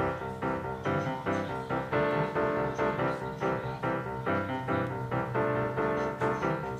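Background music: a keyboard tune of evenly repeating chords and notes with a steady beat.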